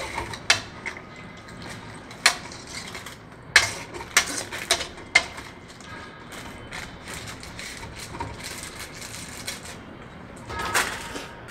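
Steel spoon scraping and clinking against an aluminium kadai as chicken curry is stirred, with sharp clinks scattered through: several in the first half and another near the end.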